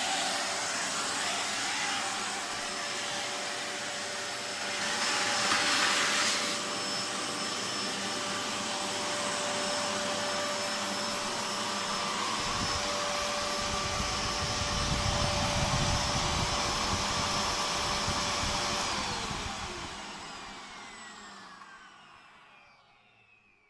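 Prototype Miele S7000 upright vacuum cleaner running with a steady whine, its suction rushing louder for a moment about five seconds in and a low rumble coming in about halfway. Near the end it is switched off and the motor whine falls away as it spins down.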